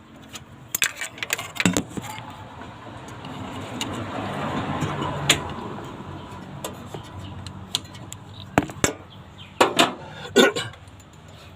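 Sharp metallic clicks and knocks from hand work on the engine as the distributor is fitted, scattered in clusters over a steady low hum.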